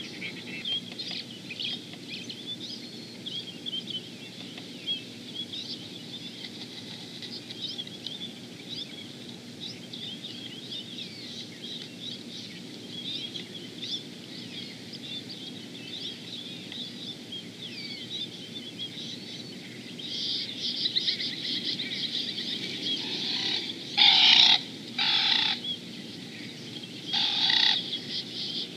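Small wild birds chirping and twittering over low, steady background noise, the chirping growing dense about two-thirds of the way through. Near the end come three loud, short bird calls, each about half a second long.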